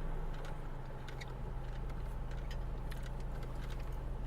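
Steady low drone of a car's engine and road noise heard from inside the cabin while driving, with a few faint clicks.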